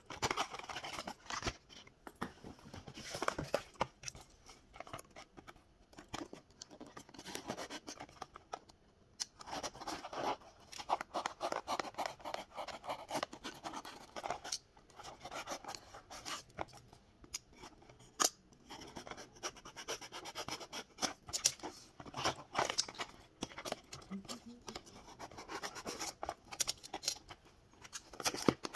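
Small cardboard box being opened by hand: a flat metal tool scraping and slitting along the carton, with the cardboard flaps rubbing and clicking as they are pried open, in irregular spells of scratching separated by short pauses.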